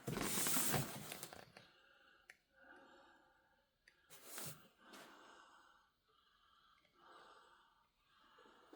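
A breathy rush of noise in the first second and a half, like a heavy exhale close to the microphone. After that it is quiet apart from a few faint clicks and soft rustles of handling.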